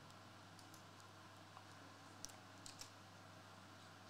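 Near silence: room tone with a low hum and a few faint, short clicks around the middle.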